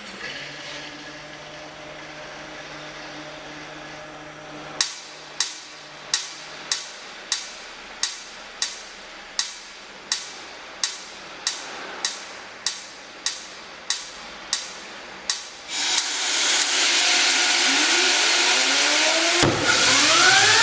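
Homemade turbojet starting up: a steady hum, then about seventeen sharp snaps of the ignition spark, about one and a half a second, then a sudden loud rush as the engine lights. Near the end a thump, and the turbine's whine starts rising as it spools up.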